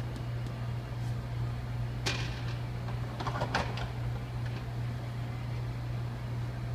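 Espresso machine humming steadily, with a sudden hissing rush about two seconds in that lasts about a second and a half, amid a few small clicks.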